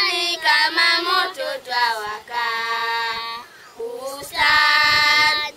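A small group of children singing a song together without accompaniment, holding some notes long.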